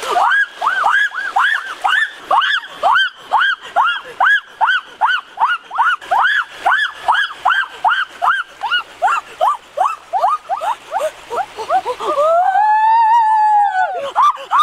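An animal calling: a rapid series of short pitched yelps that rise and fall, about four a second, then a longer drawn-out call near the end.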